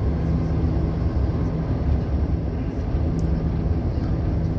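Heavy truck running steadily at highway cruising speed, heard from inside the cab: a constant low engine hum over road rumble.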